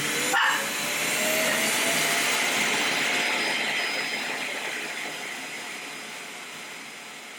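iRobot Roomba i7+ Clean Base automatically emptying the robot's dust bin: a loud rushing suction that starts with a click, with a motor whine rising under it. It gradually dies away over the last few seconds.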